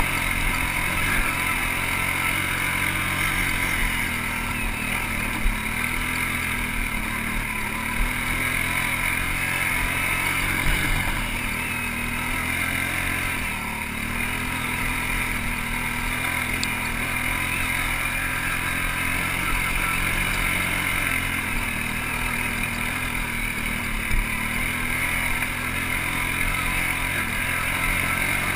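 ATV engine running steadily under load on a rocky uphill trail, its pitch rising and falling a little with the throttle. A few sharp knocks stand out now and then.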